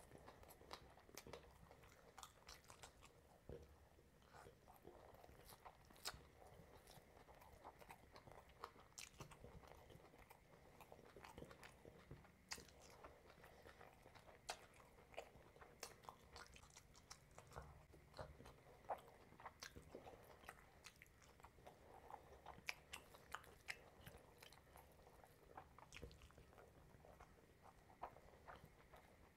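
Faint close-miked chewing of curry and rice eaten by hand: a steady, irregular stream of soft wet mouth clicks and smacks, with fingers squishing the food on the plate.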